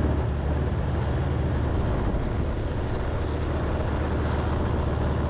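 Four-wheeler (ATV) engine running steadily as the quad drives through snow, a constant low drone with the mixed noise of the machine moving.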